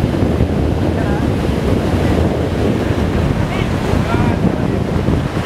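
Sea surf washing and breaking on a sandy beach, with heavy wind buffeting the microphone as a steady low rumble.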